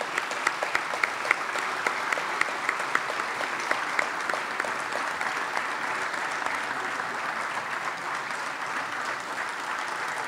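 Audience applauding an award recipient: a dense clatter of many hands, with sharp single claps standing out over the first few seconds before it settles into steady applause.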